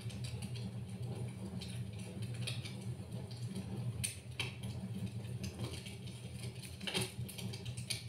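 Crackling wood fire heard through a TV's speakers: a low steady rumble with scattered sharp pops, the loudest about seven seconds in.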